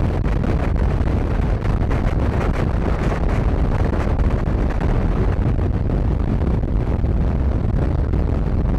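Motorcycle running at speed, a steady low rumble with wind buffeting the microphone.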